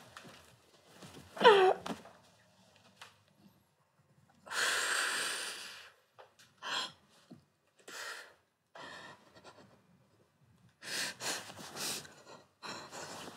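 A teenage girl breathing heavily in bed: a short whimpering moan that falls in pitch about a second and a half in, the loudest sound, then a long breathy exhale and a run of short gasping breaths.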